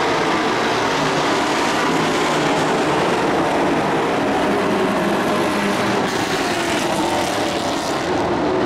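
Engines of a pack of dirt-track race trucks running at speed around the oval, several engines blending into one steady, loud sound.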